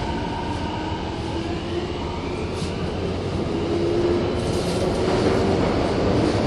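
Kobe Municipal Subway 1000-series train running, its IGBT-VVVF inverter and traction motors giving a faint whine that rises slowly in pitch over steady running rumble, growing gradually louder: the train is picking up speed.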